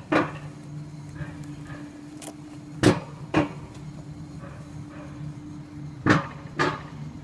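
Alpine coaster sled rolling along its metal rail, its wheels clacking over the rail joints about every three seconds, usually as a quick double clack half a second apart, over a steady low hum.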